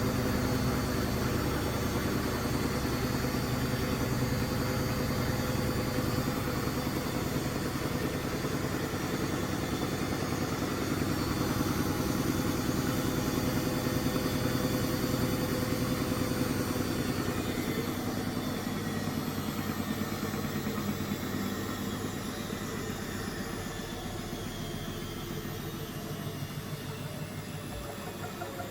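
Beko washing machine running mid-cycle: a steady motor hum with a fine regular flutter, growing quieter and falling slightly in pitch over the last ten seconds or so.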